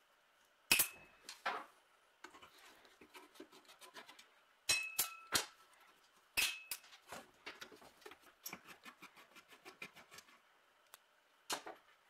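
Metal tools and small metal parts clinking and clanking while an old sheet-metal car horn is taken apart. Several sharp clanks ring briefly, and after the middle come runs of small quick ticks.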